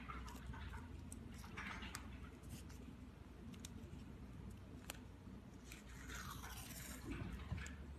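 Masking tape and a fluted paper strip being handled: scattered small crackles and clicks of paper and tape, with a longer tearing rasp as tape is pulled off the roll about six seconds in.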